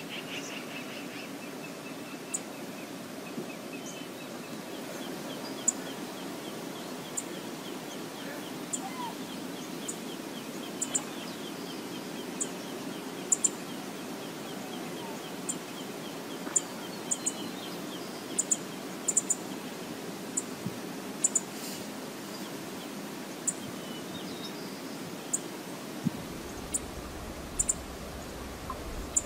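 Steady outdoor background noise from the lakeshore, with scattered short, high-pitched bird chirps, single or in quick pairs, and a faint rapid trill in the first half. A low rumble comes in near the end.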